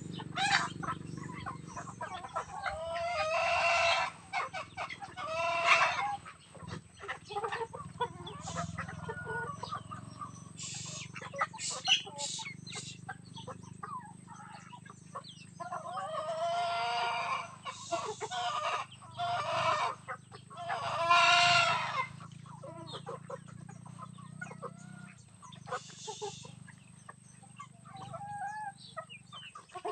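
Chickens clucking and a rooster crowing several times, with many short sharp calls in between.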